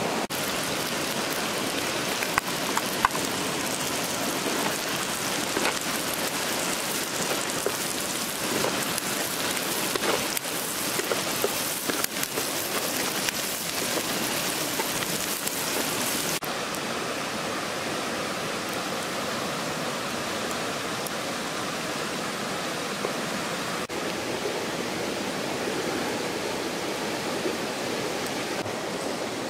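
Sliced red chilies sizzling in hot oil in a wok, a steady crackling hiss. About halfway through it gives way to a duller, steady rushing sound.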